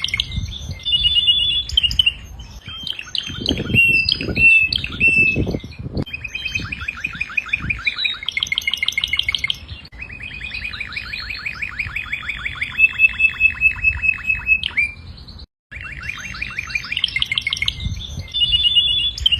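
Domestic canary singing a long song of fast rolling trills, each a rapid run of repeated chirps, changing from one trill to the next every second or two. The song is broken by a brief dropout about three-quarters of the way through.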